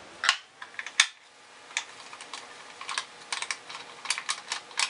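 A string of irregular small clicks and ticks from a T-handle combination wrench fitted into the plastic top cover of a Dolmar PS-32 chainsaw and turned to loosen the cover's fasteners, the sharpest click about a second in.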